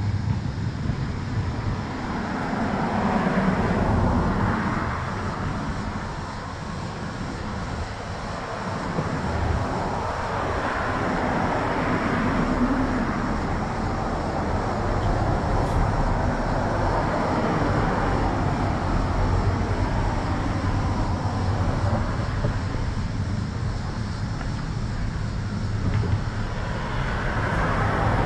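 Road traffic: a few vehicles passing one after another, each a rush of engine and tyre noise that swells and fades, over a steady low rumble.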